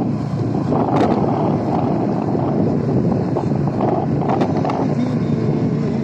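Steady rushing wind noise on the microphone mixed with the rumble of a moving road vehicle.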